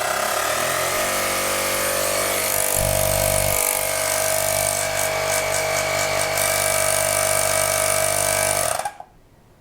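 AUXITO A301 cordless tire inflator's electric air compressor switched on and running steadily, a hum of several steady tones, not that loud, until it shuts off near the end.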